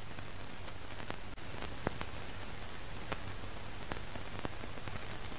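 Old-film crackle effect: a steady hiss over a low hum, with scattered sharp pops about once a second, the loudest about two seconds in.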